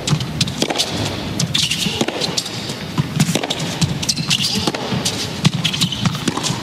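A tennis rally on an indoor hard court: rackets strike the ball back and forth with sharp hits every second or so, shoes squeak on the court surface, and an arena crowd murmurs underneath.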